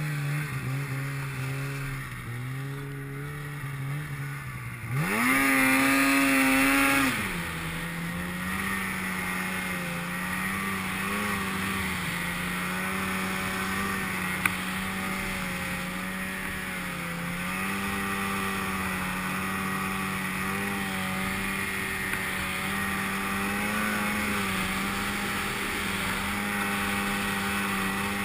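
800cc two-stroke mountain snowmobile engine under way: it runs low at first, revs hard about five seconds in for a couple of seconds, then holds a steady high pitch with small throttle rises and dips. Heard from the rider's helmet, with one short click about halfway through.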